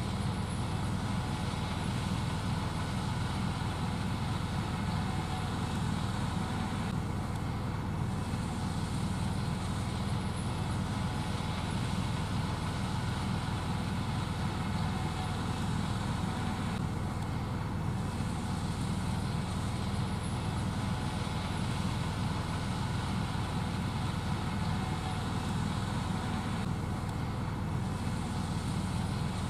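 Gleaner S78 combine harvester running steadily while shelling corn: a constant low, even machine drone that does not change in level.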